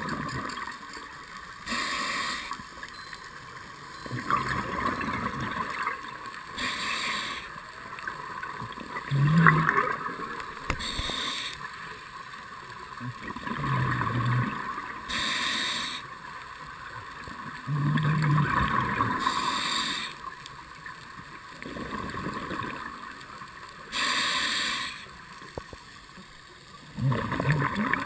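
Scuba diver breathing through a regulator: a hiss on each inhalation about every four to five seconds, with bursts of bubbling exhaust on each exhalation in between. The uploader hears this breathing as a sign the diver is shivering from cold.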